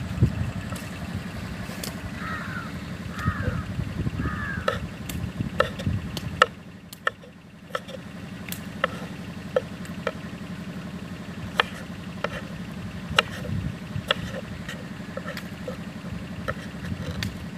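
Kitchen knife chopping tomatoes on a wooden cutting board: sharp, irregular taps of the blade hitting the board, about one or two a second. A bird calls three times a few seconds in.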